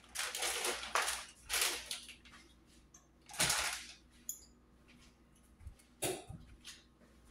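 Plastic tortilla bag crinkling in three short bursts, followed by a few light clicks and knocks.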